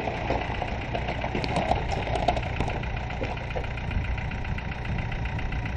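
A vehicle engine running steadily at low revs, with many short light clicks over it.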